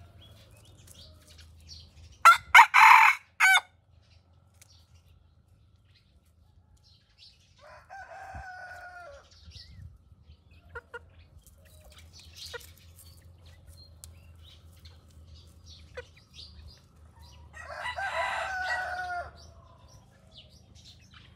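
Junglefowl-type roosters crowing: a loud, harsh, broken crow close by about two seconds in, then two shorter, clearer crows around eight and eighteen seconds, the later one louder.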